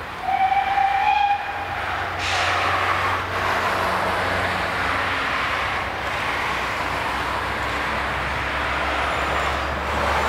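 Steam whistle of the OKz32-2 steam locomotive sounding once near the start, a single steady tone about a second long. After it, road traffic passes: cars and lorries with a steady low engine rumble and tyre noise.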